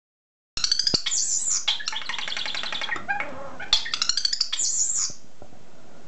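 European starling singing: a fast jumble of high whistles, rattling runs and clicks that starts about half a second in and stops about five seconds in.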